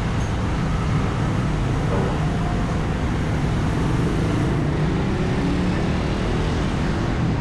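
Steady road traffic noise: cars and engines passing along a busy city street.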